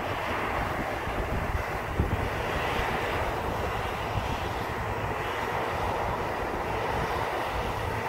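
New Holland combine harvester running at a steady working load as it picks up and threshes canola swaths: an even drone of engine and threshing machinery.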